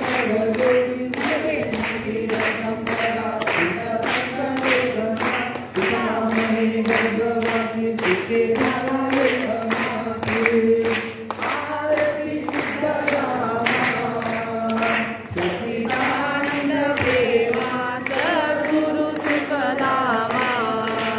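A group of voices singing a devotional song together, holding long, wavering notes over a steady beat of about three strokes a second.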